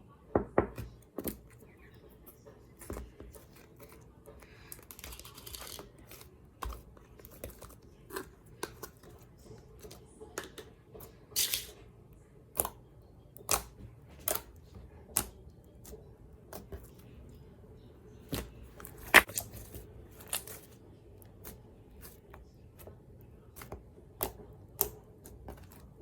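Packaging and small plastic containers being handled and opened, giving irregular sharp clicks and taps, with a short rustle about five seconds in.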